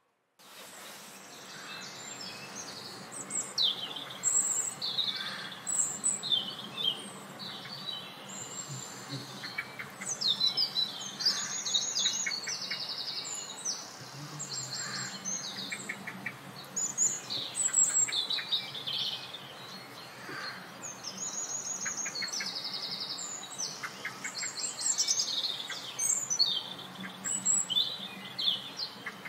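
A chorus of small songbirds: many overlapping high chirps, whistles and rapid trills, over a steady hiss of outdoor background noise.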